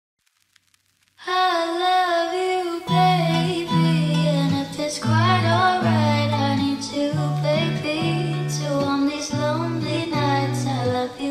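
Background music: after about a second of silence a new song starts, a singing voice over instrumental backing, with a bass line coming in about three seconds in.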